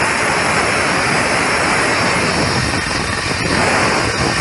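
APT 9.25-inch 2200 W circular saw running loud and steady at full speed, its blade cutting up through a plywood board to open the blade slot.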